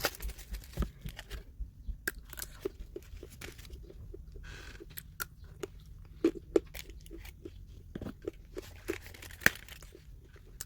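A person biting and chewing dark chocolate, with irregular crunchy clicks and a few sharper snaps past the middle.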